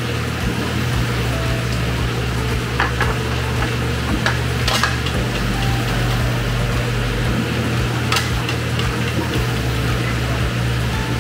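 Aquarium electric air pump humming steadily, a bit noisy, with a few sharp plastic clicks as the lid of a canister filter is worked loose.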